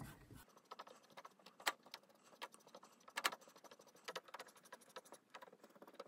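Faint, irregular small clicks and taps as a damp cotton bud is rubbed over a printer's plastic paper-feed rollers, with two slightly louder clicks about a second and a half and three seconds in.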